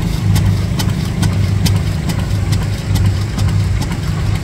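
Old Sandwich stationary gas engine running under belt load, driving a long flat belt off its flywheel. It gives a steady low pulsing chug with a sharp click about two or three times a second.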